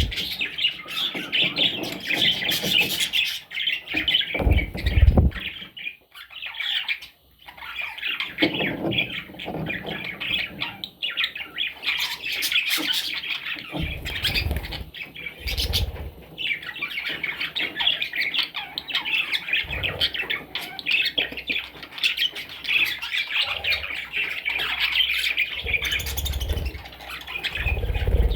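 Budgerigars chattering and squawking almost without pause, with a few short gaps and occasional low thumps.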